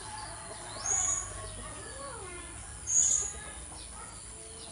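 Blue-crowned hanging parrot giving two short, high-pitched calls about two seconds apart.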